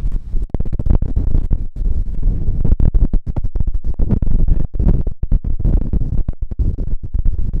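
Strong gusty wind buffeting the microphone: a loud, deep, irregular rumble that swells and drops out many times a second.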